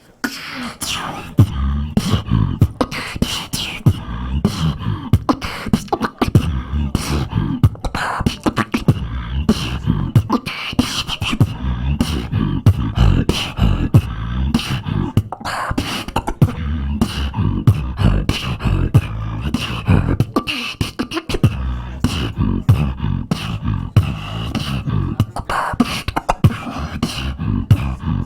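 Beatboxing: a vocal percussion routine of rapid snare-like clicks and hi-hats over heavy bass tones in a continuous driving rhythm.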